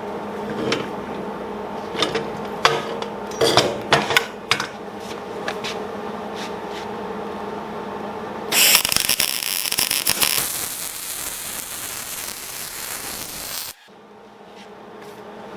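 Light metal clicks and knocks, then about eight seconds in an electric welding arc strikes and runs with a loud hiss for about five seconds before cutting off suddenly, as a tack weld is laid on thin steel. A steady hum sits underneath throughout.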